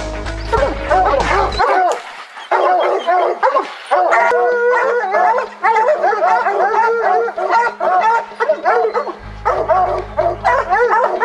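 A pack of lion hounds barking and bawling at a mountain lion they have treed, several dogs barking over one another in a rapid, continuous chorus.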